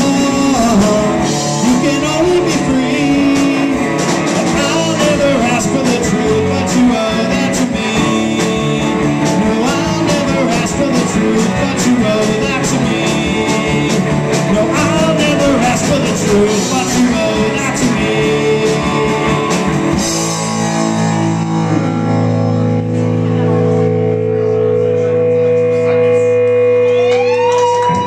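Live rock band playing: a man singing over electric guitars, bass and drums. About twenty seconds in the drums stop and the last chord is left ringing.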